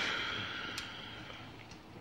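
Metal kitchenware, a pan or baking sheet, ringing after a knock and fading away over about a second and a half, with a light tick partway through.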